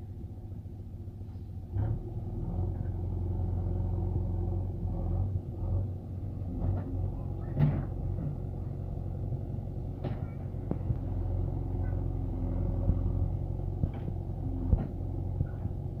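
JCB 3DX backhoe loader's diesel engine running with a steady low rumble, getting louder about two seconds in as it works, with a few sharp knocks scattered through.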